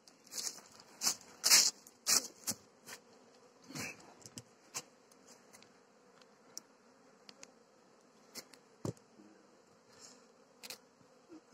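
Carniolan honeybees buzzing around an open hive, a faint steady hum under a string of short crackles and rustles that are loudest in the first three seconds and thin out later.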